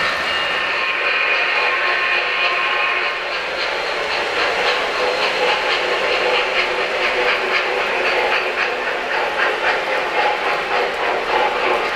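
O-scale three-rail model freight train rolling past, its wheels clicking rapidly over the track. A held high tone sounds over the running in the first three seconds, and the clicking grows denser from about four seconds in.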